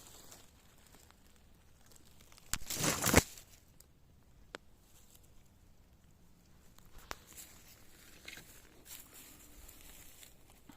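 Rustling of forest litter underfoot, with one louder crunch about two and a half seconds in and a couple of faint twig snaps later on.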